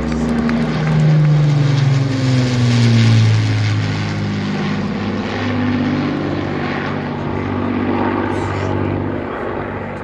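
Avro Lancaster bomber's four Rolls-Royce Merlin piston engines droning as it makes a low flypast. The engine note falls in pitch as it passes overhead in the first few seconds, then holds steadier and fades slightly near the end.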